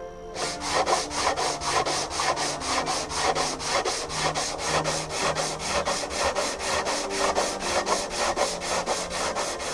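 Hand sanding of cured body filler with 80-grit sandpaper on a wooden sanding block, in quick back-and-forth strokes of about four a second. This is the rough flattening stage of a cosmetic rust-hole repair, taking the filler down to the curve of the roof.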